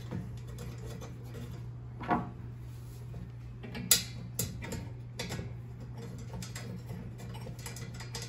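Small black screws and the turkey fryer's metal stand parts being handled and fitted by hand: a few light clicks and knocks, the sharpest about four seconds in, over a steady low hum.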